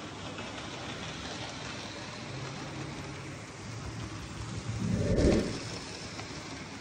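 00 gauge model trains running on the layout's track: a steady hiss of motor and wheels with a faint low hum. About five seconds in there is a brief, louder low rumble with a click.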